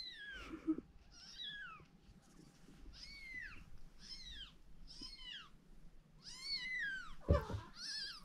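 Newborn kitten mewing again and again, played through a phone's speaker: about seven short, high mews, each falling in pitch. A loud low thump comes about seven seconds in.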